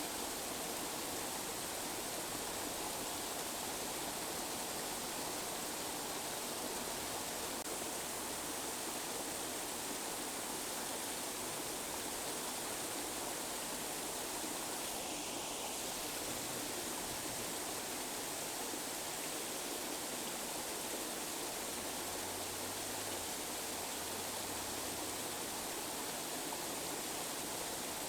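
Steady, even rushing noise of a tinnitus-masking track, bright and hissy with little bass.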